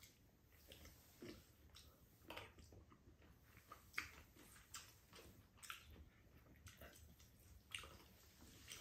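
Faint eating sounds at a table: short, scattered clicks and smacks of a spoon and a ladle against bowls and a pot of stew, with chewing and slurping.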